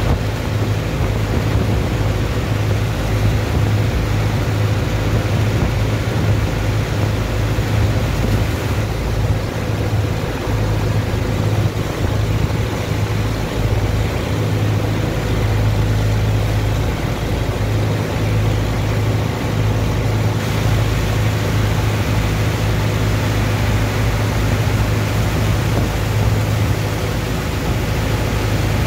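A dredger's engine running steadily with a strong low hum, under the rush and splash of water jets from hoses washing sand into slurry in a barge's hold.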